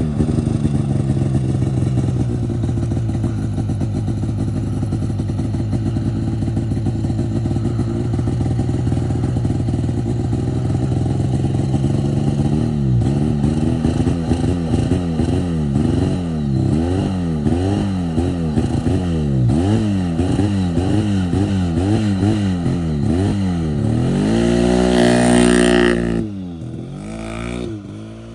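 Arctic Cat snowmobile engine running on a makeshift throttle-cable repair: it holds a steady speed at first, then from about halfway revs up and down over and over, roughly once a second. It climbs to its highest rev near the end, then drops off and fades as the sled pulls away, not running well.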